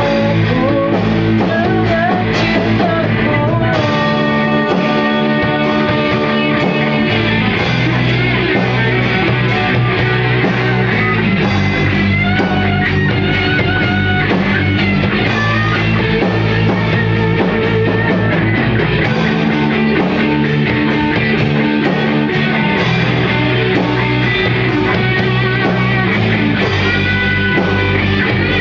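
A band playing a rock song together at rehearsal, electric guitar to the fore over bass and drums, with singing.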